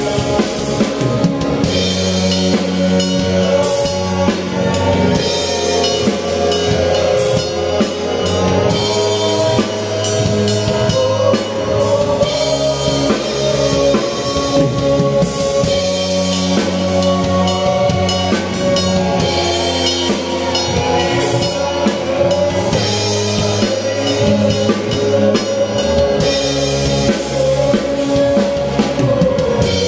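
Live worship band playing: an acoustic drum kit struck with sticks keeps a steady beat with bass drum, snare and cymbals, under keyboard, bass guitar and a man singing into a microphone.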